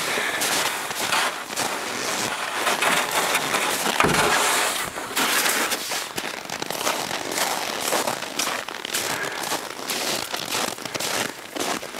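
Footsteps crunching on a snow-covered trail at a running pace: a dense, irregular crackle of steps, loudest about four seconds in.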